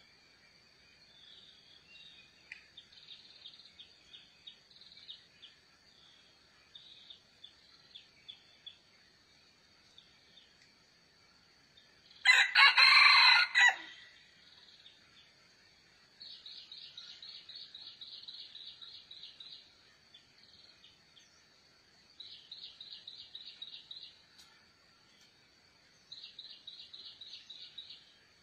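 A rooster crows once, loudly, about halfway through, one call lasting under two seconds. Around it are short high chirps and, later, three runs of rapid buzzy trills, over a steady thin high whine.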